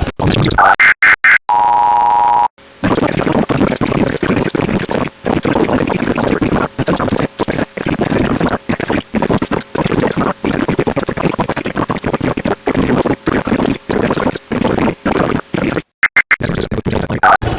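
Emergency Alert System signalling: short warbling digital data bursts, then a steady electronic tone lasting about a second. About 13 seconds of dense, choppy, crackling noise with frequent dropouts follow. Near the end come more short data bursts.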